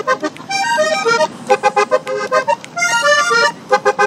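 Diatonic button accordion playing a vallenato passage: quick runs of melody notes alternating with short, clipped chords in a steady rhythm.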